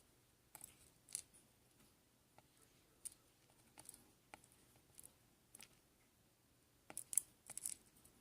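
Faint, irregular small clicks of tiny metal lock pins and tweezers being handled and set down, a few in quick succession near the end.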